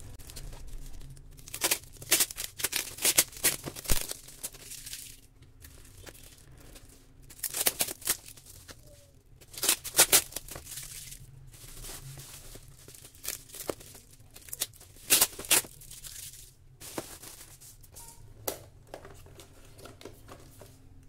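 Plastic bubble wrap and clear packing tape being torn and crinkled off a small cardboard box by hand, in bursts of crackling with short pauses between.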